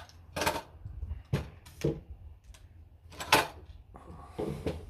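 Rifle shots on a shooting range: several sharp reports at uneven spacing, the loudest a little past three seconds in.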